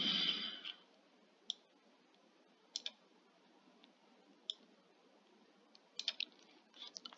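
Computer mouse clicking: single clicks and short quick pairs or runs of clicks, spaced a second or more apart.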